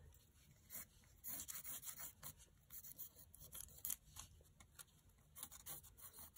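Colored pencil scratching on paper in short, irregular strokes as it traces around the edge of a paper letter stencil; faint.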